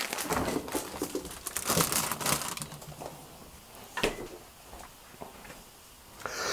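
Plastic bag of salad greens crinkling as it is handled, a dense crackling for the first few seconds that then dies down, with a single sharp click about four seconds in.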